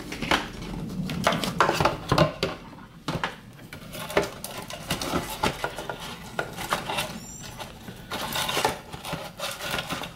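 Aluminum wire mesh crinkling and clinking as it is rolled into a loop by hand and pushed down into a plastic coffee can, with irregular light clicks and rustles throughout.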